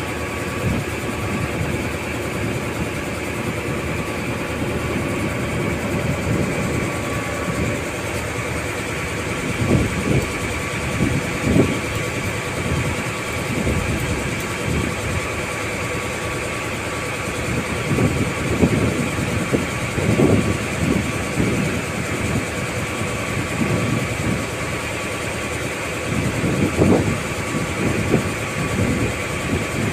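A boat's engine running steadily on board, a constant drone and hum, with irregular low buffeting thuds now and then.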